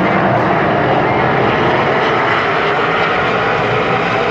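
Pack of super late model race cars' V8 engines running together in one loud, steady drone as the field circles the oval.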